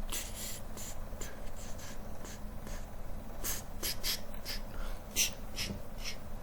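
Irregular, quick clicking of computer keys and a mouse, about a dozen and a half sharp clicks, some in quick runs, over a low steady hum.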